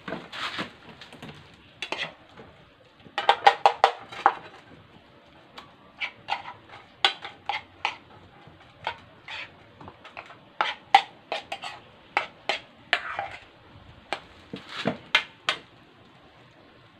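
A spoon clinking and scraping against a frying pan as rice is scooped and served, in irregular sharp clacks with a quick cluster about three seconds in.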